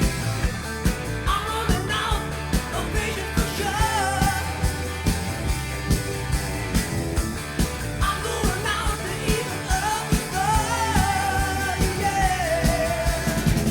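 Rock band recording: a lead singer over a steady drum beat and band backing, the voice coming in about a second in.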